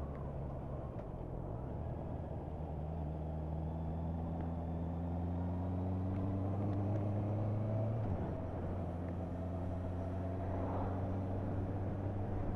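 Motorcycle engine pulling under steady acceleration, its note slowly rising, with a gear change about eight seconds in that drops the pitch before it pulls on. Road and wind noise run underneath.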